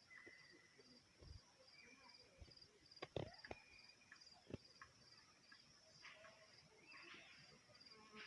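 Faint insect chirping, a steady high pulse about three times a second, with a few short thin whistles and a few soft knocks about three and four and a half seconds in.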